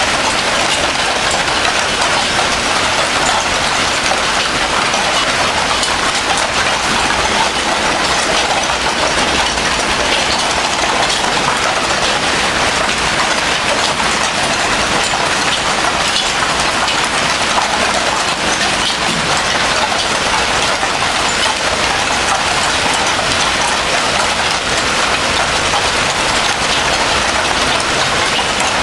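Hailstorm with heavy rain: hailstones and rain drumming on surfaces in a loud, dense, steady clatter of many small hits.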